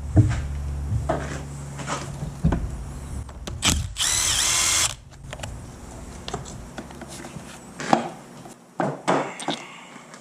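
Power drill running to back out the single bolt holding an outboard's ignition module, with a loud high whine about four seconds in. Then a few knocks and clicks of metal parts being handled.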